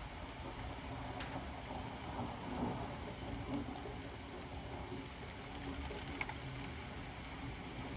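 Steady rain falling in a thunderstorm downpour, with a few sharp taps of drops about a second in and again near the end.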